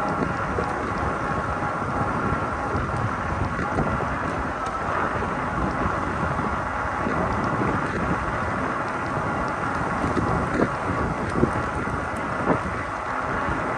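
Wind buffeting the microphone and tyre noise from a moving fat-tyre e-bike, a Cyrusher XF800, with a faint steady high whine. A few short knocks come near the end.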